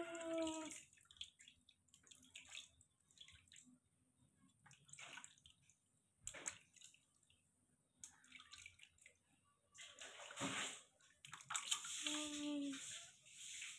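Shallow water in a plastic tub splashing and trickling in short, irregular bursts as a hand scoops and pours water over a baby monkey, with drips in between. The baby monkey gives a short, high whimpering call at the start and again about 12 seconds in.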